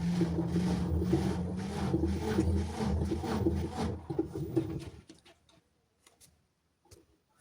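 LG washing machine running its drum: a steady low motor hum with a rhythmic swishing about two or three times a second, stopping suddenly about five seconds in. A few faint clicks follow.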